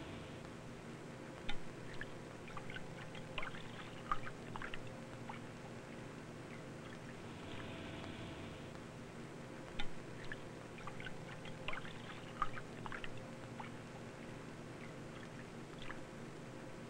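Water dripping and splashing in small irregular clusters, over a faint steady hum.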